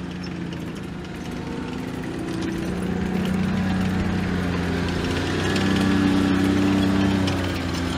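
An engine running steadily, revving up and growing louder in the middle, then settling back.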